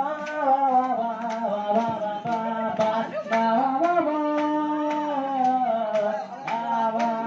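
A man singing through a microphone and small speaker, holding long drawn-out notes, with an acoustic guitar strummed in a steady rhythm.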